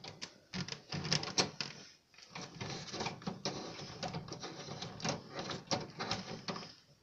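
Chicken eggs being turned by hand on an incubator's plastic mesh tray: irregular light clicks and scrapes of eggshell on shell and plastic.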